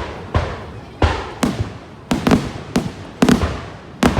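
Aerial firework shells bursting in quick succession: about nine sharp booms, some in close pairs, each trailing off in a long echo.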